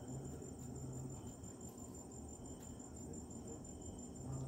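Faint, steady, high-pitched trill of a cricket over quiet room tone, with a low hum that comes and goes.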